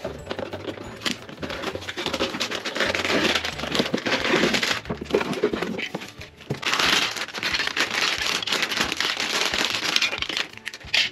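Cardboard toy box being opened and clear plastic bags of marble-run parts crinkling as they are handled, with small clicks of plastic pieces. The crinkling comes in two long stretches with a brief lull in the middle.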